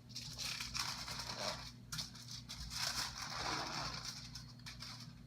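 Aluminium foil crinkling and rustling as it is handled and folded into a small boat, in uneven bursts with a brief pause about two seconds in.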